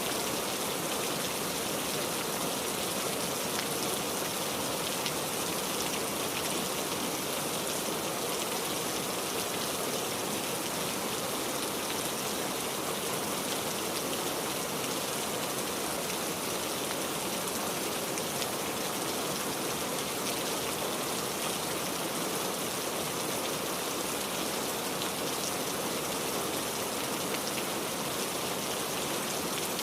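Steady rain falling, a constant even hiss with faint scattered raindrop ticks.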